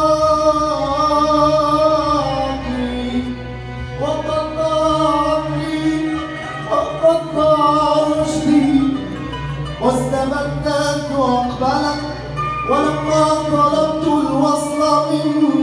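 Live Arab orchestra of violins, qanun and ouds playing a classical Arabic song, with a male voice singing the melody in long phrases over the ensemble.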